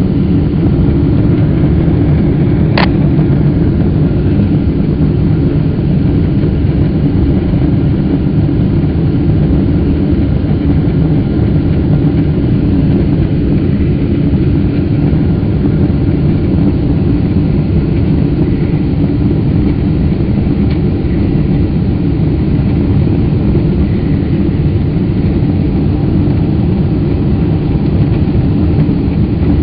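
Steady cabin noise of a Boeing 777 airliner in flight: the low rumble of its jet engines and the airflow over the fuselage. A single sharp click about three seconds in.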